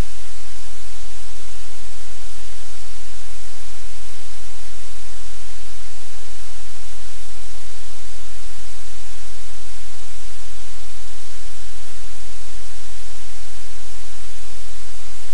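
Loud, steady static hiss with a low hum underneath, unchanging throughout.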